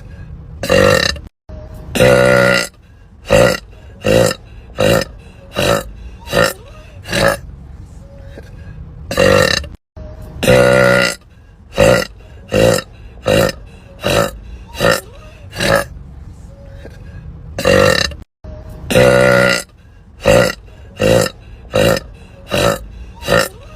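A woman burping over and over: a long burp followed by a quick string of short burps, roughly one or two a second. The pattern repeats three times.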